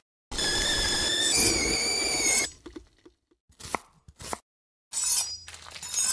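Edited intro sound effects: a bright, ringing multi-tone sound about two seconds long that shifts pitch partway through, then a few short sharp clicks, and a shorter ringing burst near the end.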